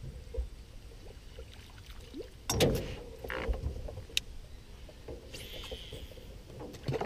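Knocks and clatter against a metal canoe's hull, with a loud bump about two and a half seconds in and a sharp click about four seconds in, then a short hiss near the end.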